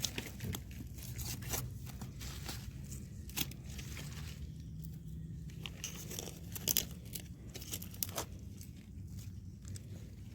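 Irregular dry crackling and crunching rustle, broken by a few sharper snaps.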